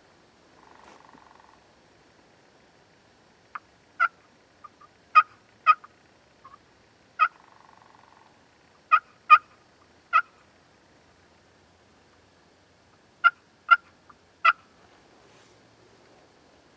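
Turkey yelping: about ten short, sharp yelp notes, singly and in quick pairs, between about four and fifteen seconds in.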